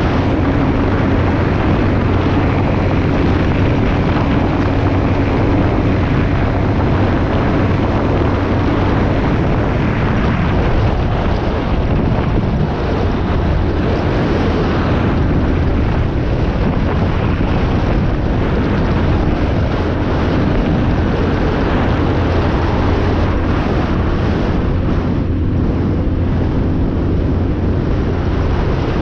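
A 2003 Yamaha XT225's single-cylinder four-stroke engine running steadily under way, mixed with heavy wind buffeting on the microphone.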